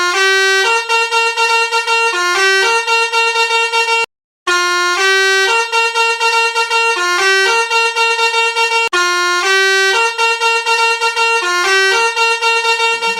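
Musical vehicle horn playing a short, reedy multi-note tune, the same phrase three times with brief breaks between.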